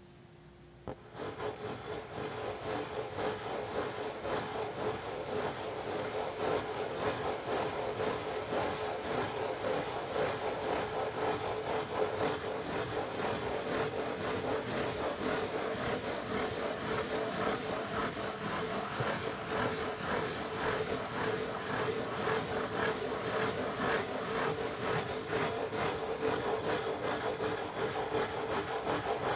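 Fingernails scratching in circles on the lid of a corrugated cardboard pizza box, starting about a second in and going on without a break.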